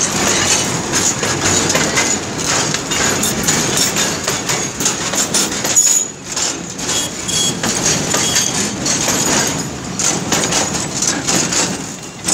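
Loaded oil tank wagons of a freight train rolling past close by: a steady rumble of wheels on rail, with repeated clatter and knocks and a few brief high wheel squeals partway through.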